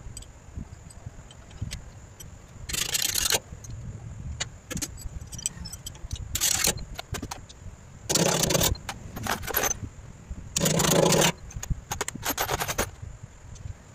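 Metal hand tools working on engine mounting bolts: about six short bursts of metallic rattling and scraping, with light clicks and knocks between them.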